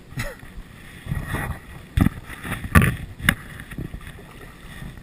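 A few irregular splashes and knocks in shallow river water as a hooked grilse is brought close to be landed; the loudest come about two seconds and about three seconds in.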